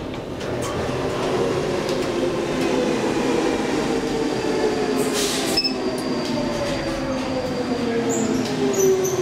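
Stockholm metro train slowing into the platform: its motor whine falls steadily in pitch over the rumble of the wheels, with a brief hiss about five seconds in.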